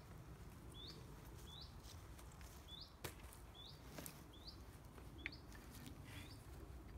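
Faint, quiet outdoor background with a small bird repeating a short rising chirp roughly once a second. A few soft clicks come from the wind generator's plastic parts being handled.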